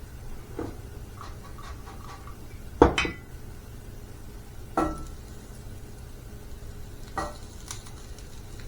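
Kitchen dishes and utensils clattering: a few separate knocks and clinks, the loudest about three seconds in, with others near five and seven seconds and brief ringing clinks before the loudest one.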